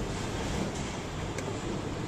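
Steady low rumble of vehicle engines in the street, with a couple of faint clicks.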